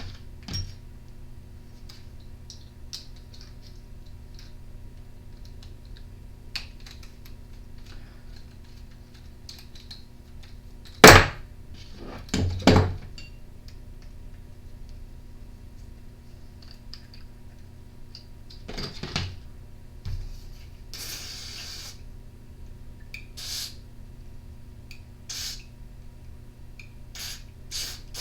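Small trimmer carburetor parts and hand tools handled on a workbench: scattered light clicks and taps, a loud sharp knock about a third of the way in, followed a moment later by two more knocks. A short hiss of about a second comes past the middle, over a steady low hum.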